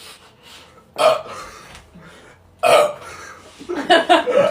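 Men burping on purpose, one after another: a short belch about a second in, a louder one near three seconds, and a longer, choppier one near the end.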